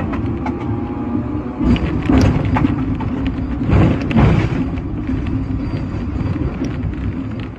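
Hong Kong double-deck tram, a sixth-generation teak-bodied car, running along its tracks, heard from inside the car: a steady hum of motors and wheels on rail, swelling louder about two and four seconds in.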